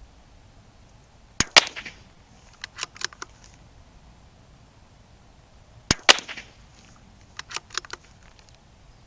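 Two shots from a CZ 457 Varmint .22 LR bolt-action rifle, about four and a half seconds apart. Each is followed about a second later by a quick run of clicks as the bolt is worked for the next round. These are fouling shots through a freshly cleaned chamber.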